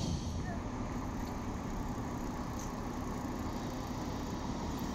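Steady low rumble of city street traffic, even in level throughout, with a higher hiss from a passing vehicle dying away at the very start.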